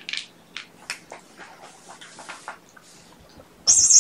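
Kittens being handled on a floor mat: scattered soft rustles and light clicks, then a short, loud, high-pitched squeal near the end.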